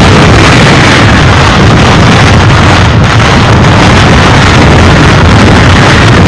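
Hurricane wind blowing hard and buffeting the microphone: a loud, steady rush with no breaks.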